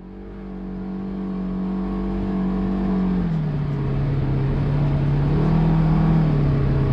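Side-by-side UTV's engine heard from the cab, running steadily at low revs while crawling along a sand track; its pitch drops a little about three seconds in and lifts briefly near the end. The sound fades in over the first couple of seconds.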